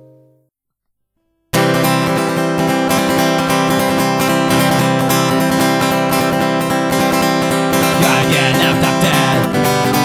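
The last strummed acoustic guitar chord of one song dies away, then after about a second of silence an acoustic guitar starts strumming chords steadily, opening the next song.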